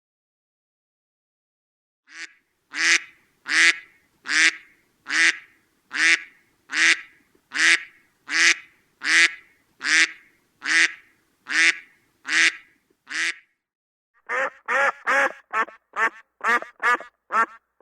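Duck quacking: starting about two seconds in, a long, evenly spaced series of quacks, about one every three-quarters of a second, then after a short pause a faster run of quacks, about three a second.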